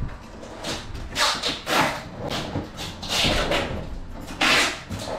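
Rubber floor covering being scraped and peeled up off a school bus's metal floor: four short rasping tears.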